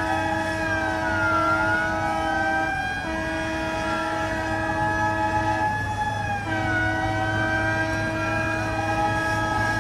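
Several fire truck sirens sounding at once, their pitches gliding up and down and overlapping, over a steady horn-like tone that cuts out briefly about three seconds in and again about six seconds in.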